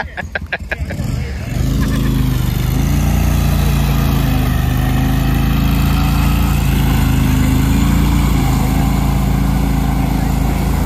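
Argo 8x8 amphibious ATV's engine running loud and steady under load as it plows through the river shallows toward the bank, with water churning around its tyres. The engine comes in loud about a second and a half in, after a few short clicks.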